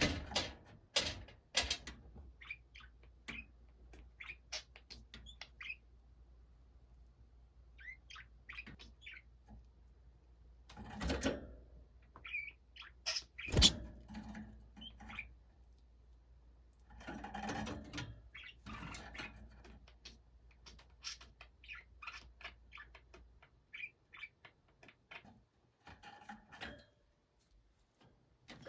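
Budgerigars chirping and chattering softly in short, scattered calls, with clicks and a few louder clattering knocks from the birds moving about, the sharpest about thirteen and a half seconds in.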